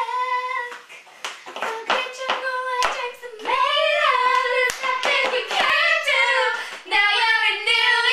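Girls singing loudly in long held notes, belting out the tune. Several sharp claps land between about one and three seconds in.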